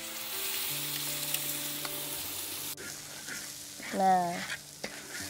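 Ground spice paste hitting hot oil in a wok and sizzling loudly, dropping sharply to a quieter frying hiss after nearly three seconds as a spatula stirs it. A short wavering cry, the loudest sound, comes about four seconds in.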